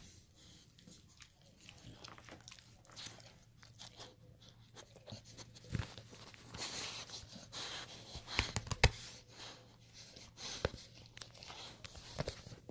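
A dog chewing and biting on a toy: irregular crunches and sharp clicks, with a dense run of loud crunches about nine seconds in.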